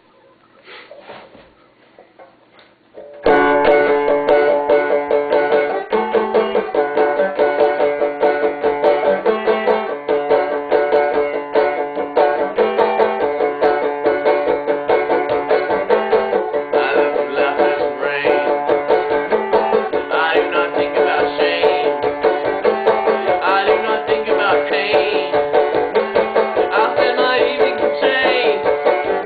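Banjo played with quick picking, starting about three seconds in after a few faint, quiet seconds.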